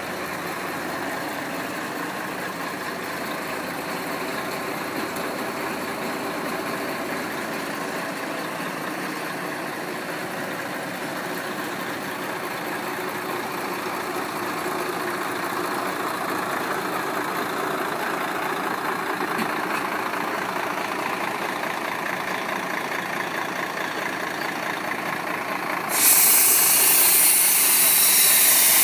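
A Mercedes-Benz Actros 3235 concrete mixer truck running steadily at idle. Near the end a loud hiss starts suddenly and continues.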